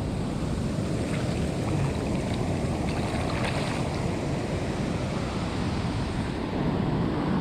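Ocean surf, a wave washing up the beach, with wind rumbling on the microphone.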